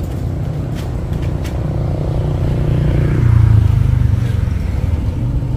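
A loud low engine-like rumble, swelling to its loudest about three and a half seconds in and easing off again, with a few light knocks about a second in.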